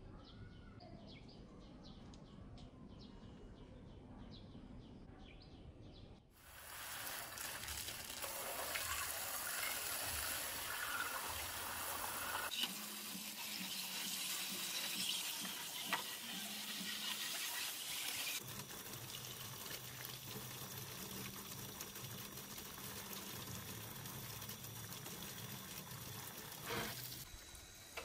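Water from a garden hose spraying onto a plastic television cabinet: a steady splashing hiss that starts about six seconds in and shifts in tone abruptly twice. Before it, faint bird chirps.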